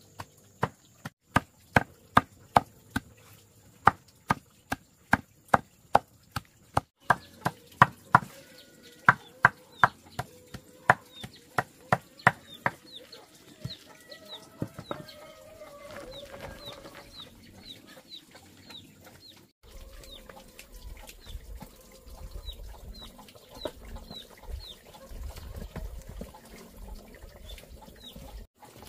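A run of sharp, loud knocks, about two a second, stops after about thirteen seconds. Chickens then cluck, and chicks give short high peeps.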